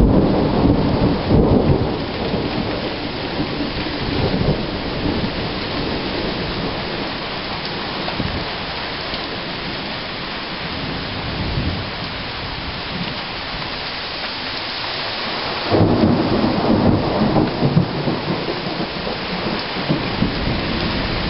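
Steady rain falling through a thunderstorm, with rumbling thunder. A rumble fades over the first couple of seconds, and a louder peal of thunder breaks in suddenly about sixteen seconds in and rolls on to the end.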